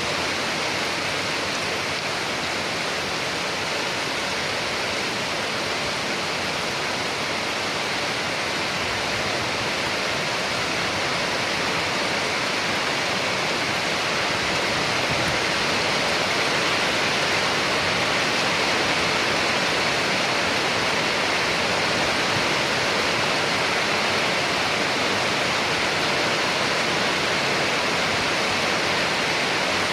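Steady rain, a dense even hiss without separate drops, growing slightly louder about halfway through.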